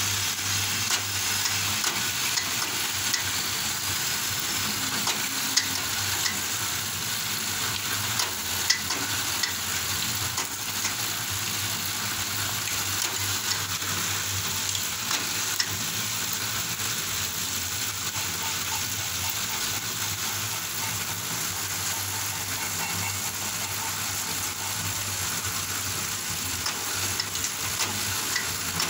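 Bamboo shaving machine for satay skewers running: a steady crackling hiss over a low motor hum, with scattered sharp clicks.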